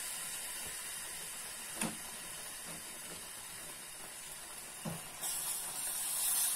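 Hot roasted semolina sizzling quietly in a frying pan, with two light knocks. About five seconds in, hot sugar syrup is poured onto it and a much louder steamy hiss rises.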